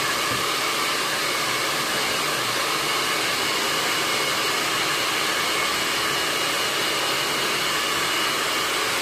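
Hand-held hair dryer running steadily while blow-drying washed hair: a constant rush of air with a faint high whine.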